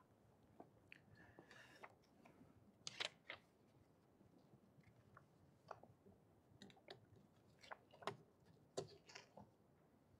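Near silence with faint, scattered clicks and a short soft rustle, from a Bible and sheets of paper being handled and set down on a pulpit.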